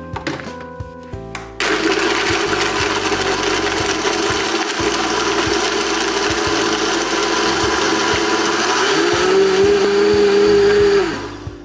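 Vitamix blender switching on about a second and a half in and running at high speed, crushing ice cubes and cereal with ice cream into a shake. Its motor tone steps up in pitch about nine seconds in, and it cuts off about a second before the end.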